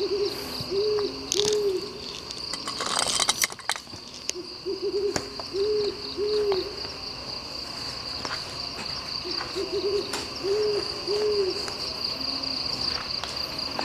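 An owl hooting in three bouts about four to five seconds apart, each a quick stutter of short notes followed by two or three longer hoots, over a steady high-pitched insect drone. There is a brief burst of rustling about three seconds in.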